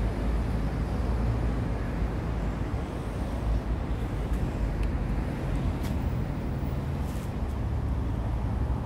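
Steady low rumble of a motor vehicle running, with a few faint clicks about six and seven seconds in.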